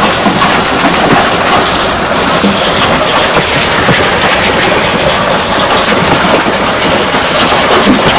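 Hailstones pelting down in a hailstorm: a loud, steady, dense patter of countless small impacts on the ground and garden.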